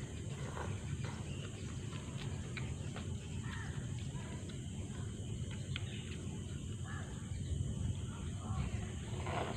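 Eating sounds from a bowl of bakso meatball noodle soup: noodles slurped, chewing, and a plastic spoon against a plastic bowl, coming as short irregular sounds over a steady low outdoor rumble.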